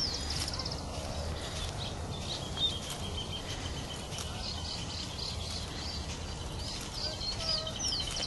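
Several birds singing in the trees: short high chirps and whistled glides over a steady, rapid trill of repeated notes, with a low rumble underneath.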